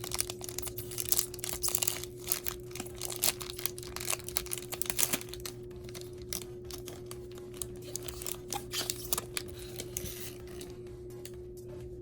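Foil booster pack being torn open and crinkled, a dense run of crackling rustles that thins out after about five seconds. A steady low electrical hum runs underneath.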